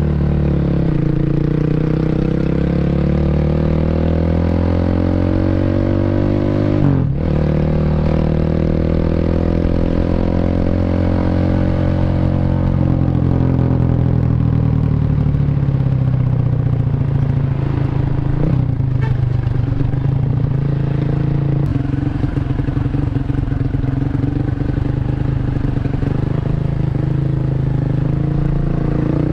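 Bored-up 150cc Honda Revo single-cylinder four-stroke running through an aftermarket CLD C7 exhaust while being ridden. The engine note climbs, drops sharply at a gear change about seven seconds in, and climbs again. It then eases off and holds a steady pitch, with another brief drop and rise at the very end.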